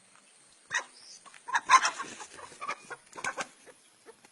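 Chickens clucking: a quick, irregular run of short, sharp clucks that fades out near the end.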